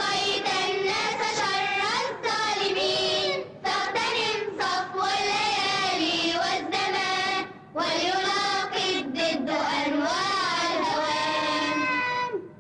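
A class of schoolboys singing a song of praise in Arabic together in unison, phrase after phrase. The singing stops suddenly near the end.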